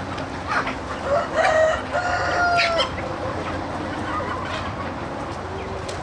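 Chickens clucking, with a rooster crowing once, a held call lasting from about one to three seconds in.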